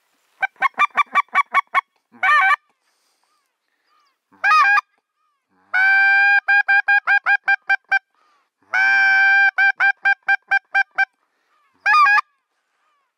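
Hand-held goose call blown close by to lure geese: a quick run of short honks, single honks, and twice a long drawn note breaking into a rapid string of short clucking honks, very loud.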